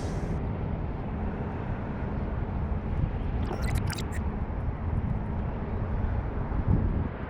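Steady low rumbling outdoor noise with a few brief clicks about three and a half seconds in, the sort made by wind buffeting the microphone.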